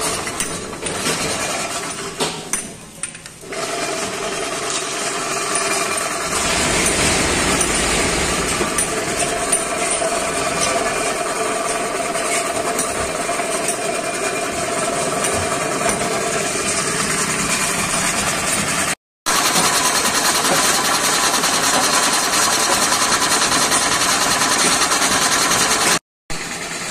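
Belt-driven electric air compressor running steadily, a dense mechanical noise with a faint hum in it. The sound drops out briefly twice, once about two-thirds of the way in and once near the end.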